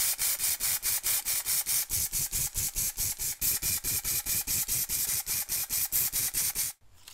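Aerosol spray can of varnish giving a fast, even, pulsing hiss, about five pulses a second, which cuts off suddenly near the end.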